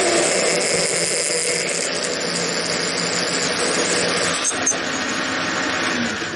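Metal lathe running while a twist drill in the tailstock drills out the centre hole of a change gear held in a four-jaw chuck: a steady machine drone with the drill cutting metal.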